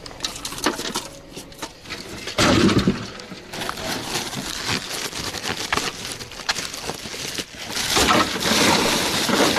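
Ice clattering and knocking as it is handled and tipped into a fish hold of seawater on a boat, with a rushing noise building near the end.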